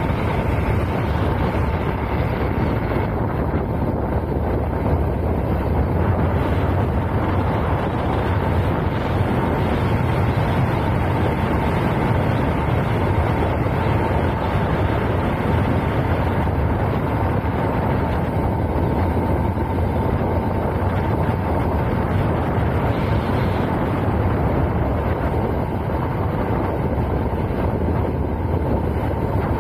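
Motorcycle riding at road speed: a steady rush of wind on the bike-mounted microphone over the engine running.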